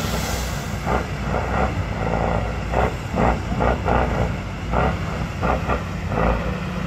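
Competition trial truck's diesel engine working hard under throttle, a steady low rumble with louder surges that come and go every fraction of a second.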